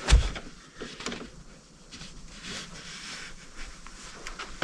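A thump, then light clicks and rustling from hands and a tool working on the battery cable connections.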